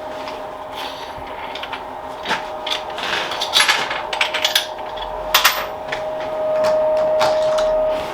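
Cut steel pieces being handled and their edges cleaned up by hand: scattered clicks and short scraping rasps of metal, over a steady hum that grows louder near the end.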